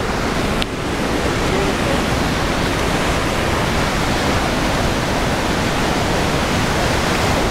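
Loud, steady rush of Iguazu Falls' water plunging over the rocks close below.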